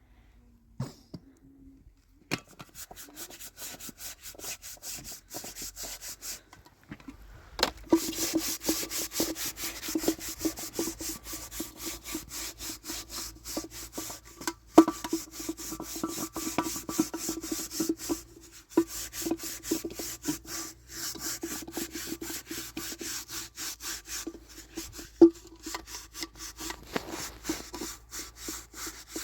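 Rapid, even back-and-forth sawing strokes that start about two seconds in and keep going, with a steady hum running under them from about eight seconds in and a couple of sharp knocks along the way.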